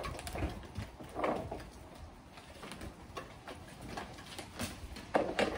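Light plastic planter tiers being handled and stacked: a few short hollow clunks and scrapes as the plastic pieces knock together, the loudest pair about five seconds in.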